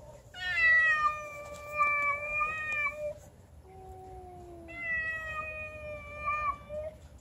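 Cats yowling in a face-off: two long, wavering yowls of about three seconds each with a short pause between them, the second starting low before it swells.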